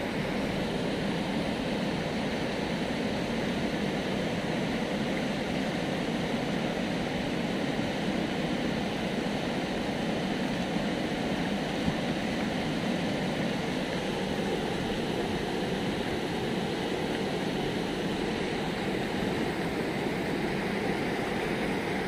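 Steady rushing of river water pouring over a concrete dam weir and churning below it.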